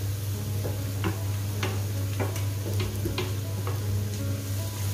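Chopped onion being tipped and scraped from a steel pan into a frying pan of hot coconut oil: a light sizzle with scattered sharp clicks, about one every half second, over a steady low hum.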